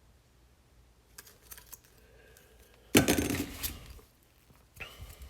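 Small hard parts and tools being handled on a table while taking apart an Echo Dot smart speaker: a few light clicks, then one loud clatter about three seconds in as something is set down or dropped, and more clicks near the end.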